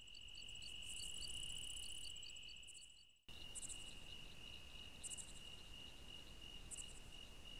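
Faint chirping of crickets: a steady high trill fades in, then switches abruptly a little over three seconds in to a pulsing trill at the same pitch, with a few short, higher buzzes now and then.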